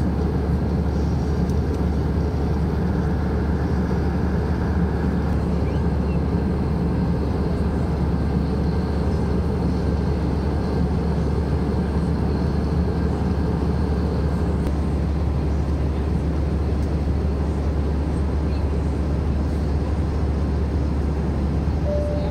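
Steady cabin noise of an Airbus A321-200 in flight, heard inside the cabin: a constant low rumble of the jet engines and rushing airflow, without change.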